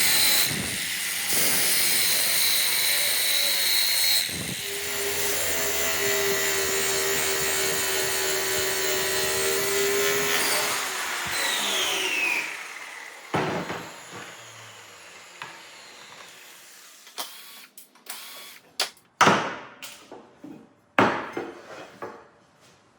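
Power grinder running steadily against steel with a hissing grind, then winding down with a falling whine about twelve seconds in. Scattered sharp knocks follow.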